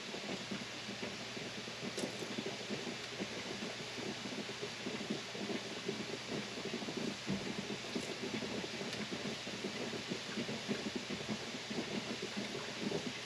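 Strawberry-rhubarb fruit mixture bubbling softly and steadily in a stockpot on the stove, with a faint tick or two.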